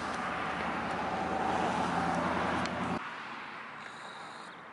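Steady outdoor background noise with no clear single source, cutting off abruptly about three seconds in to a quieter background.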